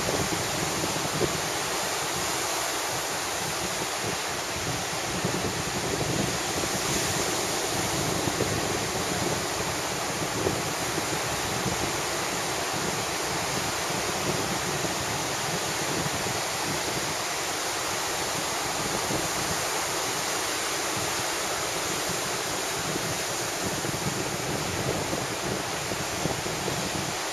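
Small waves breaking and washing up the beach in a steady rush, with a fairly strong onshore wind buffeting the microphone in gusts.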